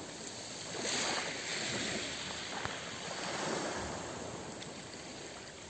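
Small sea waves breaking and washing up a pebble beach. The surf swells about a second in, then slowly fades as the water draws back.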